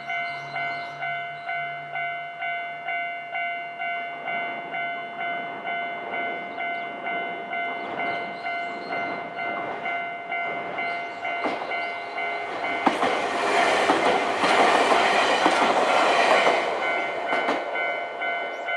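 Japanese level-crossing warning bell ringing a steady repeating ding, a little over two strikes a second. Partway through, a Nankai electric train passes over the crossing: its running and wheel clatter build from about twelve seconds in and are loudest for about four seconds before fading.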